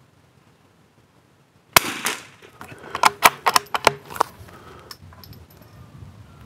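A single shot from a CZ BRNO Model 4 .22 Long Rifle rifle, a sharp crack with a short ring-off, just under two seconds in. About a second later comes a quick run of sharp metallic clicks, the bolt being worked to eject the spent case and chamber the next round.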